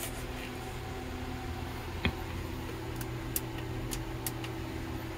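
Steady low hum of room noise, with a few faint ticks and one sharper click about two seconds in.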